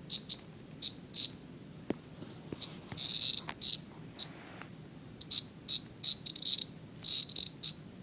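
Cicada giving short, buzzy distress squawks in irregular bursts, about fifteen of them, as it struggles after being caught by a cat.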